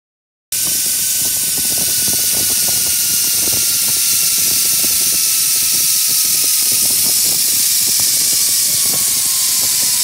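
Zipline trolley pulleys running along a steel cable, starting suddenly about half a second in: a loud steady hiss with a thin whine that slowly falls in pitch as the trolley slows. Wind buffets the microphone under it.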